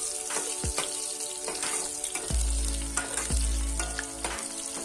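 Chopped onion sizzling as it fries in hot oil with cumin seeds, a steady hiss, while a steel ladle stirs it, scraping and knocking against the pot several times.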